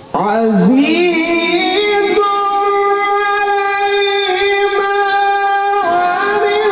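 A male qari reciting the Quran (tilawat) in a melodic chanting voice through a microphone. It begins suddenly with a quick ornamented run, then holds one long note for about four seconds before the melody moves on near the end.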